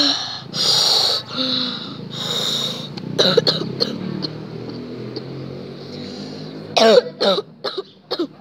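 A young boy coughing: three harsh coughs in the first few seconds, followed by short throat and voice sounds near the middle and near the end. He has a cold.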